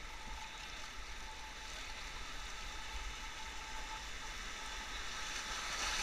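Whitewater river rapids rushing, a steady hiss that grows louder toward the end as the rough water gets closer.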